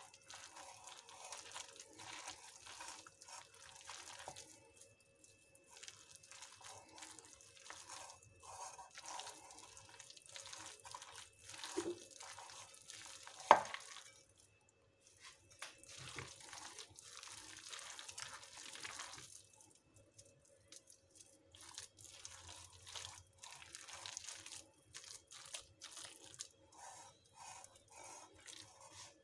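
Hands kneading a wet gram-flour batter of shredded cabbage and onion in a glass bowl: a run of short moist squelching and crunching strokes with brief pauses. One sharp knock stands out about thirteen seconds in.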